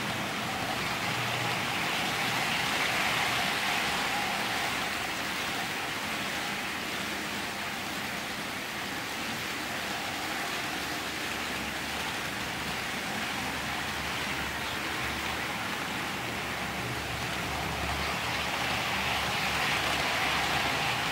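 OO gauge model trains running on the track: a steady rolling hiss of wheels and motor. It swells a few seconds in and again near the end, when a Hornby Class 373 Eurostar passes close by.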